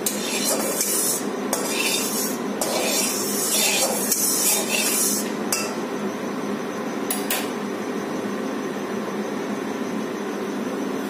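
Flat metal spatula scraping around the inside of a metal kadai, spreading the heating mustard oil, in a run of strokes over the first five seconds and once more about seven seconds in.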